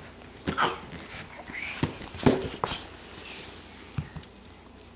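A dog giving a few short whimpers and yips while playing, with a few light knocks in between.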